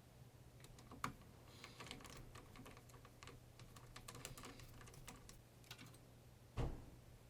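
Faint, irregular small clicks and taps over a low steady hum, with a sharper knock about a second in and a louder thump near the end.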